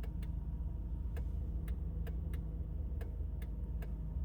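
Random clicking from under the driver-side dash of a 2008 Honda Accord: about nine sharp clicks at irregular intervals over a steady low hum. The owner traced it to a failing MICU, the under-dash fuse and relay unit, which also left the turn signals, hazards and some door locks dead.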